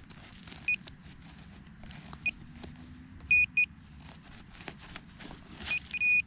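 Handheld metal-detecting pinpointer giving short high electronic beeps, singly and in pairs, as its tip is probed through loose soil in a dig hole: the beeps signal metal near the tip. Soft scraping of dirt and leaf litter runs between the beeps.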